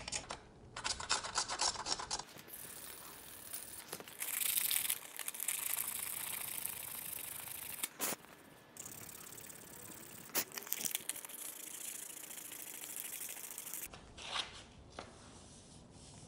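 Duct tape being peeled and ripped off the cured epoxy and carbon wrap on a bicycle frame: a crackling, sticky rip in long pulls, loudest about four seconds in, with a few sharp snaps.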